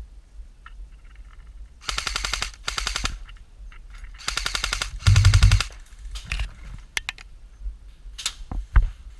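Airsoft guns firing several short rapid-fire bursts, the loudest with a heavy low thump about five seconds in, followed by a few single shots.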